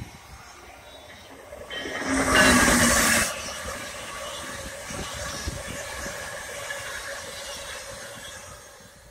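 Amtrak passenger train passing at speed: a loud rush of noise about two seconds in, then a steady rumble of wheels on rail as the cars go by, slowly fading near the end.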